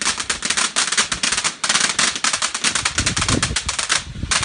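Crackling firework: a dense, rapid string of sharp cracks, many a second, with a low rumble about three seconds in. A real racket.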